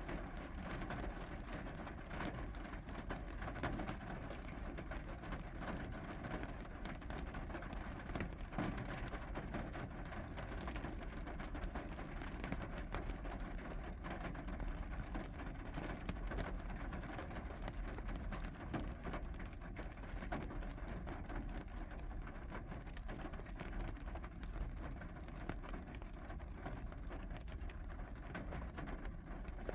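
Steady rain falling, with a dense patter of drops and a low rumble underneath.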